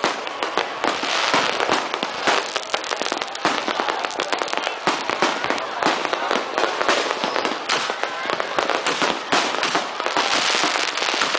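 Fireworks going off in a dense barrage: rapid, overlapping bangs and crackling from many shells and firecrackers at once, without a pause.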